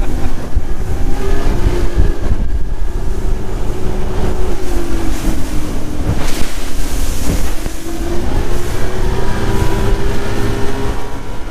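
Wind buffeting the microphone on a boat, with a steady hum underneath that wavers slightly in pitch.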